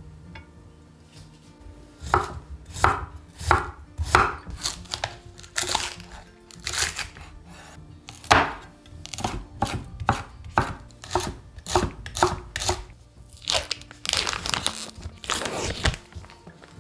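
Chef's knife slicing through a red chili pepper onto a wooden cutting board: a series of crisp knocks, about two a second. Near the end this gives way to a couple of seconds of rustling as the plastic film of a bacon pack is peeled open.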